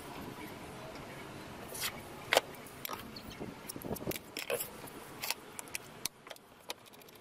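Scattered light clicks and knocks of wood pieces and small tools being handled on a workbench, with one sharper knock about two and a half seconds in.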